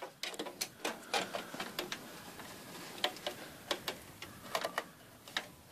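Wireless PCI-e card being handled and pushed into a computer's PCIe slot: an irregular scatter of small clicks and knocks against the case and motherboard.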